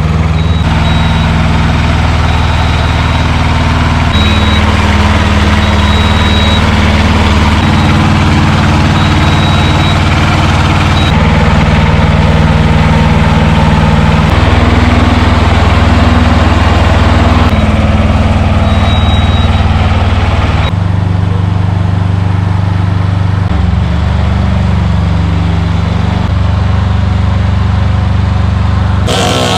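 A large engine running steadily at a constant speed, its pitch jumping abruptly every few seconds.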